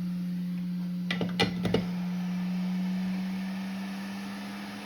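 Quick 861DW hot air rework station running with a steady low hum that tapers away near the end, with a few sharp clicks about a second in.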